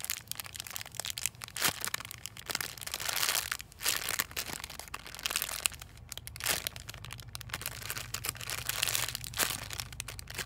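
Clear plastic packaging bag crinkling in irregular rustling bursts as the foam squishy sealed inside it is squeezed and turned by hand.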